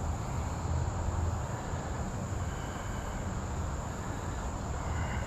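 Crickets chirring in one steady high drone, over a low outdoor rumble.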